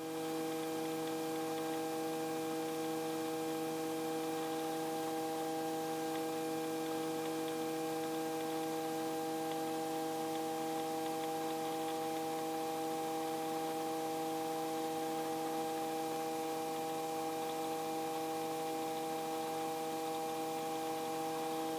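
Steady hum of several held tones over an even hiss, unchanging throughout: a light helicopter in level cruise, heard on the cockpit's headset-intercom recording.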